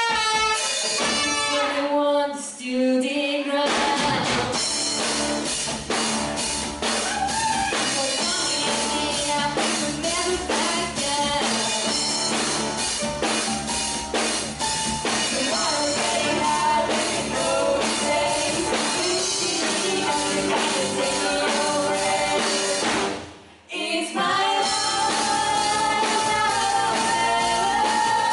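Live band with drum kit and two female singers playing a pop-rock song. A few sparse opening notes give way about four seconds in to the full band with drums and singing. Near the end there is a brief break, and then the band comes back under a long held sung note.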